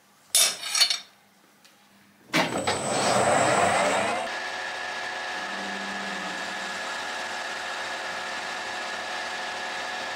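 A brief clatter, then a Colchester 1800 manual lathe starts about two seconds in, spins up for a couple of seconds and settles into steady running with a whine.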